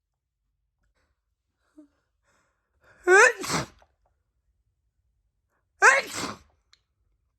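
A woman sneezing twice, about three seconds apart. Each sneeze is a loud voiced burst that falls in pitch. They are wet sneezes.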